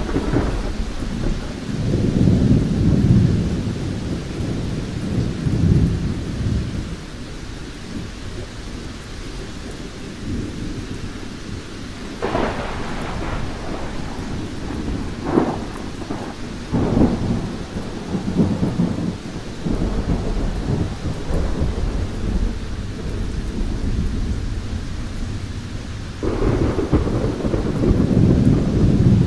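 Thunderstorm: thunder rumbling over steady rain, with a few sharp cracks in the middle and a heavy rumble building again near the end.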